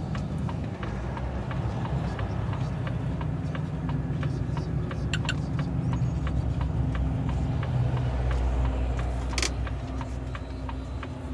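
Truck tractor's diesel engine running, heard inside the cab as the truck moves slowly, with a steady ticking about three times a second. The engine gets a little louder about eight seconds in, and there is one short sharp sound about nine seconds in.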